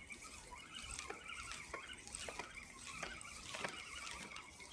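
Spinning reel on a feeder rod being wound in, a faint whirring with light scattered clicks, as a hooked fish is reeled in.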